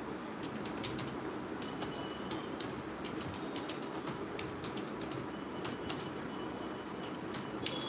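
Scattered, irregular light clicks and taps over a steady background hum.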